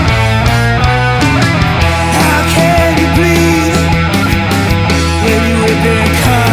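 Blues-rock band music playing loud and steady: electric guitar over bass and drums, with a few sliding, bending notes in the middle.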